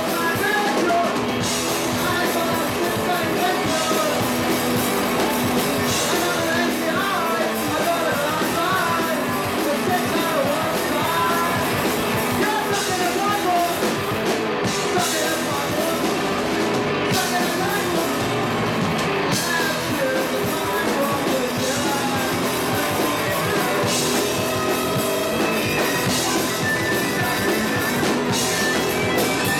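Live rock band playing: two electric guitars, bass guitar and drum kit, with a lead vocal sung over it. Cymbal crashes recur through the song.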